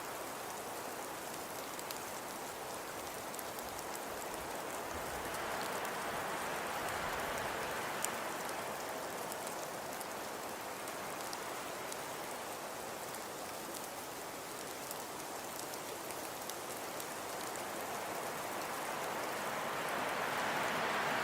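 Snowfall ambience in wind: a steady rushing hiss with fine, faint pattering. It swells gently about six seconds in and again near the end.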